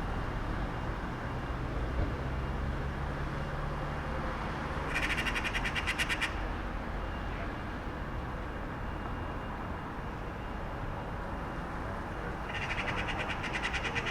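Calm street ambience: a steady background hum of distant traffic, with a low engine-like drone through the first few seconds. A bird gives a burst of rapid chattering calls about five seconds in and again near the end.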